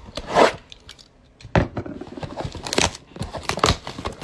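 Plastic shrink-wrap on a trading-card box being cut and torn open with a utility knife: a run of short, sharp crinkles and scrapes with brief pauses between them.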